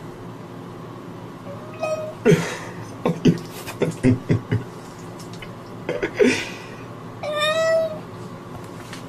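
Wet cat sitting in bathwater, meowing unhappily: a short call about two seconds in, a run of short sharp sounds, and a longer drawn-out meow near the end.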